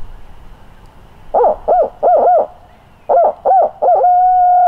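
A barred owl's 'who-cooks-for-you, who-cooks-for-you-all' hoot, loud and close. It comes as a run of four short rising-and-falling hoots, then three more, then a long drawn-out final note near the end.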